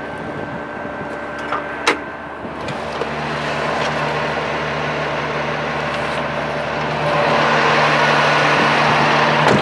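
STC 500 truck crane's diesel engine idling steadily. A sharp click comes about two seconds in as the cab door latch opens, and the engine grows louder in the last few seconds as the door stands open.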